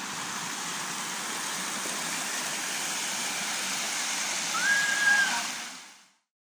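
Steady rush of a stream pouring over smooth rock slabs at a waterfall, fading out near the end. About four and a half seconds in, a short high call sounds once, held and then dropping.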